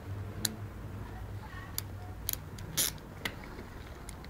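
Teutonenhund puppy gnawing a toy mouse: about half a dozen sharp, irregular clicks of teeth on the toy, with one louder crackle a little under three seconds in.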